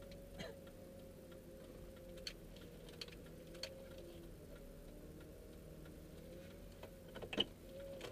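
Quiet car cabin while the car rolls slowly: a steady faint hum with scattered short clicks and ticks, a few in the first four seconds and a sharper cluster about seven seconds in.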